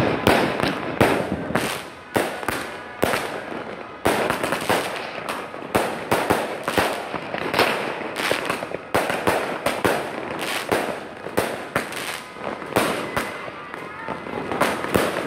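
LF Olympic World 228-shot aerial fireworks cake firing in rapid succession: a continuous, irregular run of sharp launch bangs and aerial bursts, several a second.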